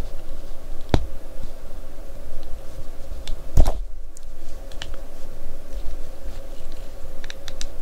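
Rubber tyres being worked by hand onto the small plastic wheel rims of a model car kit: light handling noise with a sharp click about a second in, a louder knock about three and a half seconds in, and a few quick light ticks near the end.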